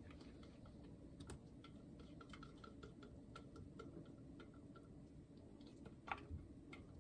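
Near silence: room tone with a few faint, short clicks, about a second in and again near the end.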